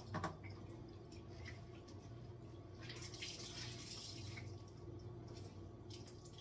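Faint water drips and soft wiping at a kitchen sink just after the tap is turned off, over a low steady hum.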